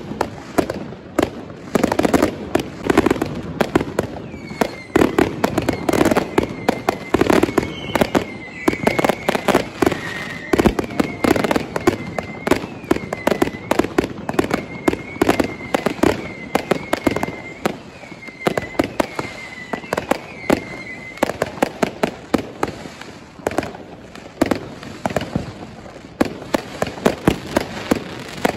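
Many fireworks and firecrackers going off at once, a dense, unbroken run of cracks and bangs. From about five seconds in until about twenty seconds in, a high, wavering tone sounds over them again and again.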